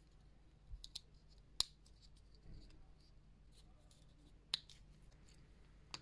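A few short, sharp clicks from a freshly set brass snap fastener on a leather strap being pressed shut and pulled open, the loudest about one and a half seconds in.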